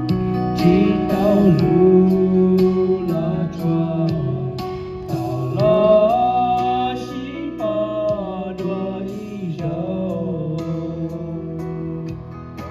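Karaoke: a man singing into a microphone over an instrumental backing track with a steady beat, played through a portable speaker.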